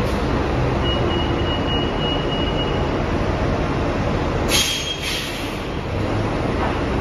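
New Flyer Xcelsior XD40 diesel transit bus with a Cummins L9 engine pulling slowly to a stop, its engine running steadily and a thin brake squeal about a second in. About four and a half seconds in comes a sharp hiss of air from the brakes, then a second shorter hiss.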